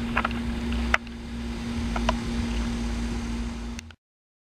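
1992 Rheem Classic X heat pump outdoor unit running in heat mode: a steady hum with a constant tone and a low rumble from its compressor and fan. There are a few light clicks, and the sound cuts off abruptly near the end.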